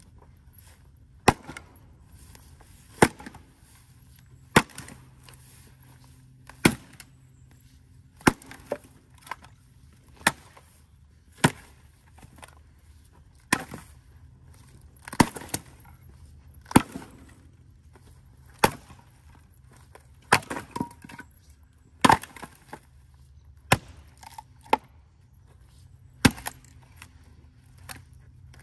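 Splitting axe striking and splitting firewood rounds on a chopping block: a series of sharp wooden cracks, roughly one every one and a half to two seconds, about seventeen strikes in all.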